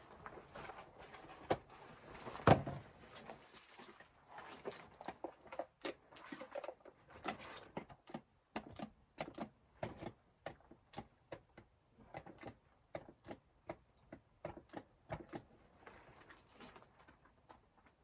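A long series of sharp knocks and clicks, with one loud thump about two and a half seconds in, then a quick irregular run of two to three knocks a second through the middle.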